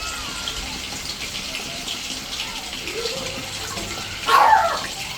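Steady rush of running water, with a dog barking once, loudly, near the end.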